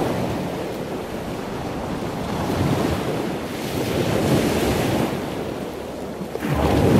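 Ocean waves washing on a shore, a steady rush of surf that swells and recedes every couple of seconds.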